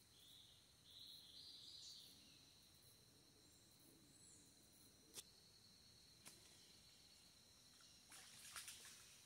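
Near silence with a faint steady high tone and a few short chirps, two sharp single clicks midway, and near the end a brief crackling splash in the river.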